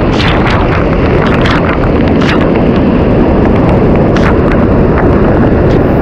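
Waterfall pouring straight onto the camera: a loud, steady rush of falling water with many splashes and spatters hitting the microphone.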